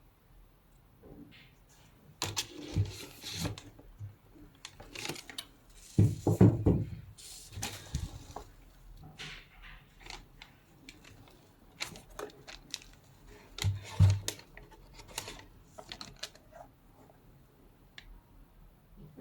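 Unboxing handling noises from a cardboard sneaker box and its paper wrapping: irregular rustling and crinkling with scattered clicks, and a couple of dull thumps, the loudest about six seconds in and again near fourteen seconds.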